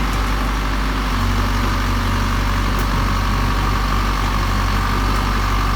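Volvo EC55D mini excavator's diesel engine running steadily at a low, even hum.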